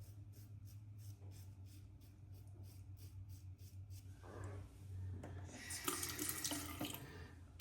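A tap running into a sink, starting about four seconds in and growing louder: water for wetting the shaving brush before lathering for the second pass. Before it, faint regular ticks, about three or four a second.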